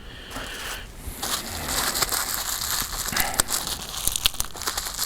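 Plastic packaging crinkling and crackling as it is handled and opened, starting about a second in, with many small sharp crackles.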